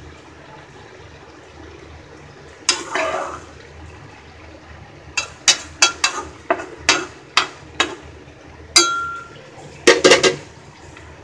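Steel spatula scraping and tapping against a steel kadai while vegetables are stirred in it. A scrape comes first, then a run of sharp metal taps about two a second, a single ringing clink, and a quick cluster of loud clinks near the end.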